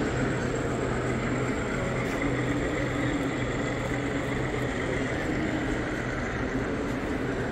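A steady mechanical drone with a constant low hum that does not change.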